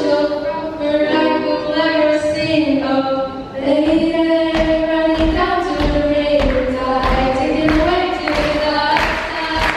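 Three young female voices singing a song together into microphones, with a ukulele played alongside; regular strummed strokes come in more strongly about four seconds in.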